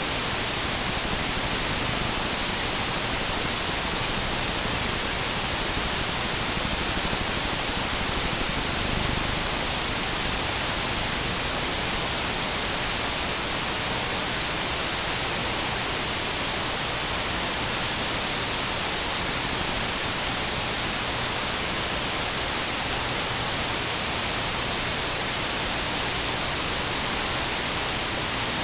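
Steady, fairly loud static hiss, strongest in the high frequencies, with no other sound in it.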